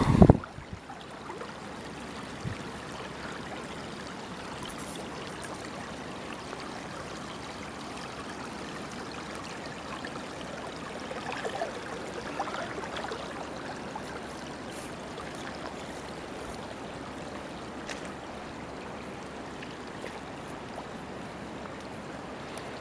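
Shallow stream water running and trickling steadily over submerged branches and debris.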